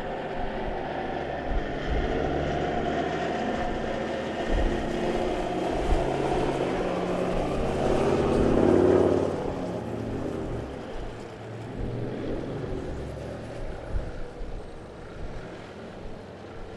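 Four-wheel-drive engine working through soft sand dunes. The revs build to a peak about eight to nine seconds in, then ease off and fade, with the odd knock from the vehicle along the way.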